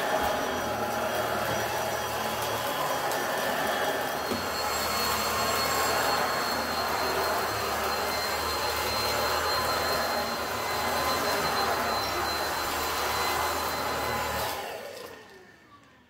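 Afoddon cordless stick vacuum running steadily as its motorized brush head is pushed back and forth over carpet, with a thin high whine in the motor noise. The sound fades out near the end.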